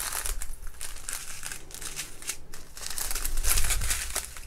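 Small clear plastic bags of diamond-painting drills crinkling and crackling irregularly as they are picked up and handled, with a dull handling rumble about three seconds in.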